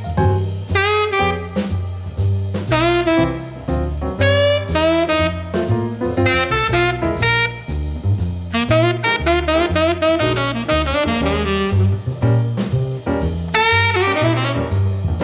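Instrumental jazz: a saxophone plays the melody over a bass line that steps from note to note.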